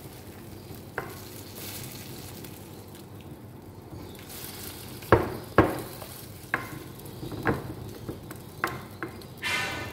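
A spoon stirring pasta through baked feta and tomatoes in a glass baking dish, the wet food squelching, with sharp knocks of the spoon against the glass once about a second in and then several times in the second half, and a short scrape near the end.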